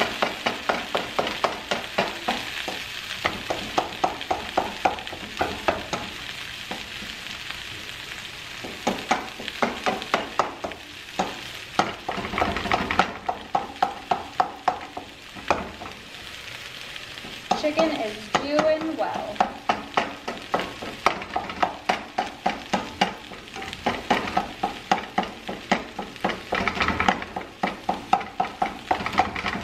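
Chicken frying and sizzling in a pan on a gas stove while a spatula stirs it, scraping and knocking against the pan about two to three times a second, with a couple of short pauses in the stirring.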